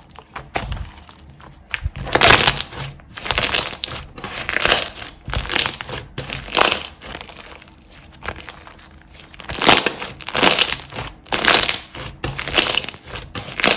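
Slime being squeezed and pressed, crackling and crunching in repeated swells about once a second, with a quieter pause in the middle.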